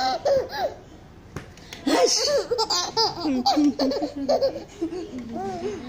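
Baby laughing: a short burst of giggles, a pause of about a second, then a long run of laughter from about two seconds in.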